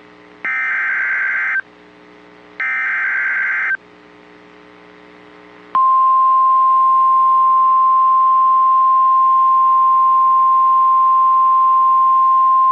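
The EAS/SAME digital header of a NOAA Weather Radio alert: two bursts of warbling data tones, each about a second long, about a second apart. About two seconds after the second burst, the single steady 1050 Hz warning alarm tone starts and holds. It is the signal that a new warning is about to be broadcast.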